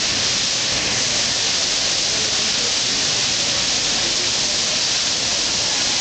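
Water falling in thin streams down a rock-wall waterfall and splashing below, a steady, unbroken hiss.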